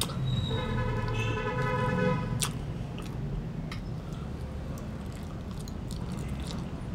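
A person chewing and biting food with small wet mouth clicks. A brief steady hum is heard in the first two seconds.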